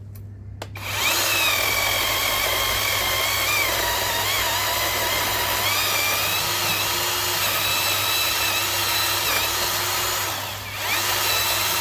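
YOVOT 12-inch cordless electric chainsaw cutting through a log, its motor whine wavering in pitch as the chain takes the load. It starts about a second in, dips briefly near the end, then runs again.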